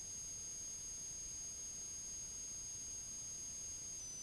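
Faint, steady electronic hiss with a thin, high-pitched whine. This is the background noise of the audio feed between transmissions; no engine or propeller sound stands out.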